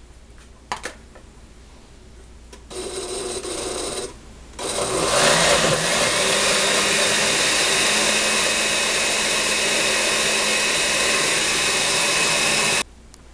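Countertop blender with a glass jar grinding chiles, onion, garlic and spices in water into a red enchilada sauce. It runs for about a second and a half, stops briefly, then runs steadily for about eight seconds and cuts off suddenly.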